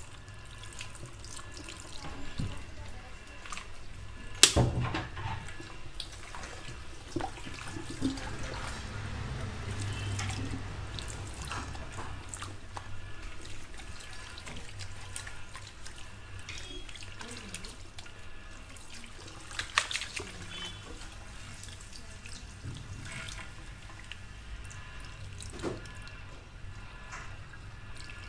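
Water from a handheld shower sprayer running over hair and splashing into a salon backwash basin as the hair is rinsed. A few sharp knocks break in, the loudest about four seconds in.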